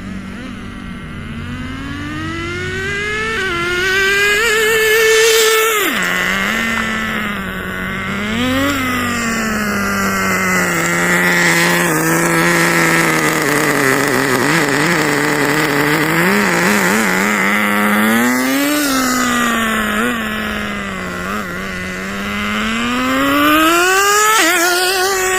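The 18CXP nitro engine of an HSP 94102 Sonic RC car running and revving, its pitch rising and falling again and again as the throttle is worked. About six seconds in, the pitch drops suddenly.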